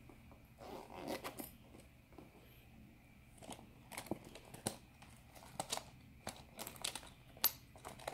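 Zipper of a bear-shaped pouch pulled open about a second in, then small objects inside clicking and rustling as they are handled.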